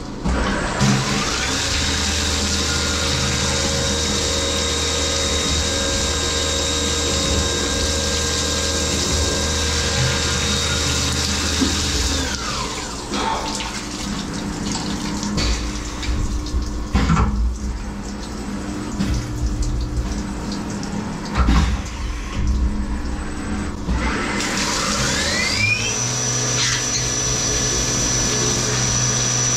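Syil X7 CNC mill's spindle spinning up with a rising whine, running steady, then winding down about 12 s in. Clunks and clicks follow, then the spindle spins up again near the end to a higher whine. Flood coolant splashes throughout.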